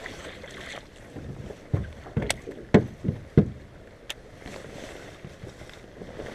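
Handling noise on a bass boat while a fish is landed: a handful of dull thumps and knocks between about two and three and a half seconds in, plus a couple of sharp clicks, over a low background hiss.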